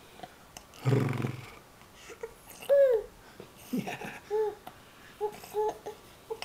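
Silly vocal noises: a low buzzing grunt, then a loud squeaky call that rises and falls, followed by several short squeaks.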